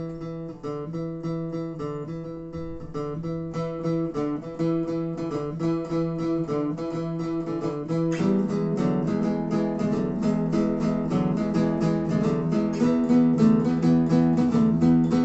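Acoustic guitar intro to a song, notes played in a steady rhythm; about eight seconds in the playing fills out and gets louder.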